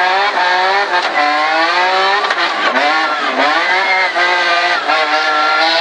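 BMW E30 rally car's S54 straight-six engine heard onboard under hard driving, its note climbing and dropping in pitch several times as the driver accelerates, lifts and changes gear.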